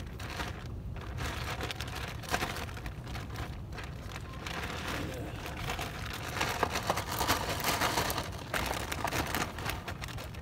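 Crackling, rustling handling noise as a small wriggling fish is held in a gloved hand and unhooked, louder from about six seconds in, over a steady low wind rumble.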